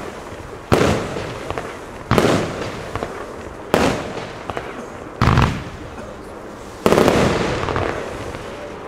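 Aerial firework shells bursting overhead: five loud bangs about a second and a half apart, each trailing off.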